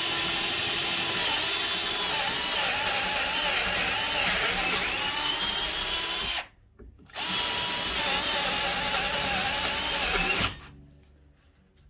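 Milwaukee M12 3/8-inch cordless drill/driver on a lower speed, boring a large bit into a treated 2x4. The motor whines with its pitch wavering under load. About six and a half seconds in it stops for about half a second, then runs again for a few seconds and stops, the bit grabbing in the wood.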